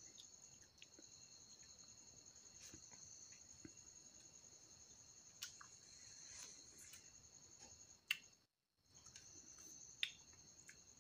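Faint, steady high-pitched chirping trill of crickets, with a few sharp clicks and crunches of someone eating close by. The sound cuts out completely for about half a second past the middle.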